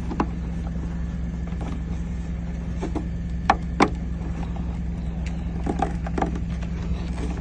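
Scattered light clicks and knocks of a plastic tail light assembly being slid and pressed into place, with two sharper clicks about halfway through, over a steady low hum.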